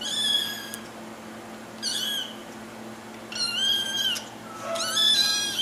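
A kitten meowing four times, high-pitched calls each under a second long, the last the longest.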